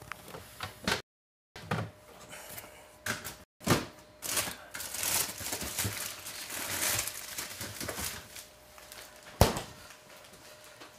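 Rustling and crinkling on a worn microphone, with scattered clicks, as its tangled cord is freed. The audio cuts out completely twice in the first few seconds, and there is a sharp click about nine seconds in.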